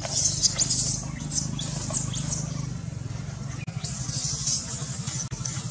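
Baby macaque squealing and shrieking in short, shrill high-pitched cries, most of them in the first half, over a low steady hum.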